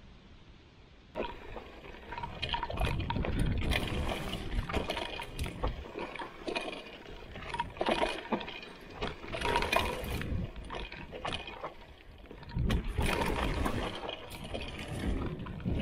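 Trek Roscoe 7 hardtail mountain bike ridden along a rough trail: tyres rolling over dirt and rocks with a steady rumble, overlaid by frequent rattles and knocks. The noise starts suddenly about a second in and swells and dips with the terrain.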